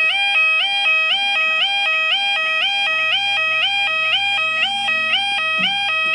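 A UK level crossing's yodel alarm sounding continuously as the crossing closes for an approaching train. It warbles evenly between two tones, about two cycles a second.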